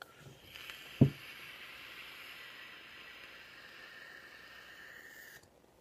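A long draw on a sub-ohm vape on an iStick 30 watt mod: a steady hiss of air and the firing coil for about five seconds that stops suddenly near the end. A single sharp thump comes about a second in.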